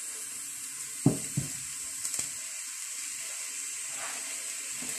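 Chopped onion sizzling steadily in olive oil in a stainless steel pot, with a couple of short knocks about a second in.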